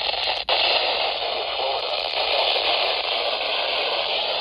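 Weather radio receiver hissing with steady static, broken by a brief dropout about half a second in.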